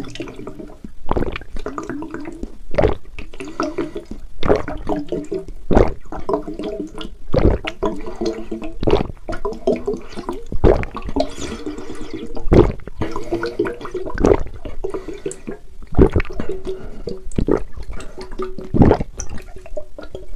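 A toddler slurping and sucking Yakult from a small plastic bottle: gurgling liquid and air, with a sharp slurp about every second and a half.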